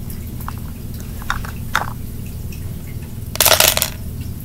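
Handling noise from someone rummaging on the floor under a table: a few light clicks, then about three and a half seconds in a loud rustling scrape lasting about half a second. A steady low hum runs underneath.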